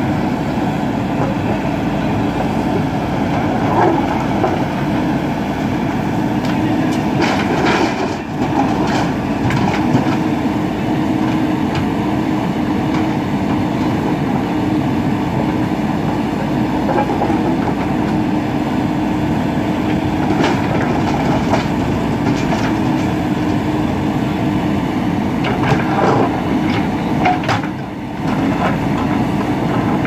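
JCB 3DX backhoe loader's diesel engine running steadily under hydraulic load as the backhoe works a pile of large stones, with stones knocking and clattering against the steel bucket a few times, most around a third of the way in and again later on.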